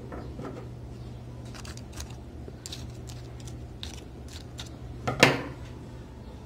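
Small handling sounds of potted succulent cuttings being worked by hand on a wooden table: scattered light clicks and rustles, with one sharper knock a little after five seconds in, over a steady low hum.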